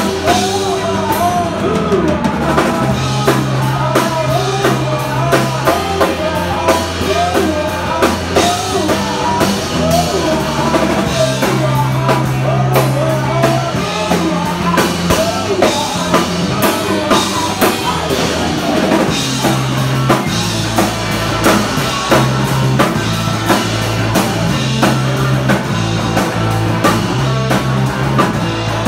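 Live rock band playing loudly: electric guitars over a stepping bass line and a drum kit, with a voice singing.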